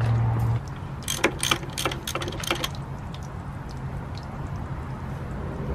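Half-inch-drive socket ratchet clicking through a run of about eight quick, uneven clicks, then a few fainter ticks, as it works an exhaust manifold drain plug on a marine V8. A low steady hum cuts off about half a second in.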